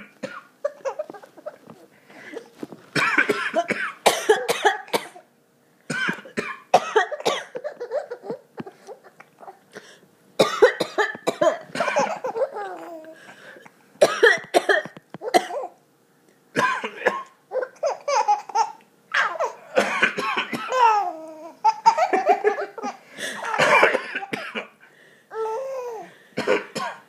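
A man coughing in repeated bouts, with a baby's laughter breaking out among and after the coughs.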